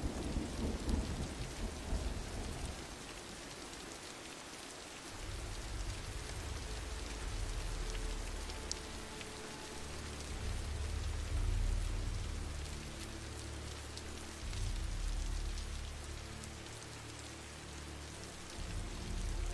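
Steady heavy rain falling and pattering on surfaces, with deep low rumbles that swell and fade several times from about five seconds in.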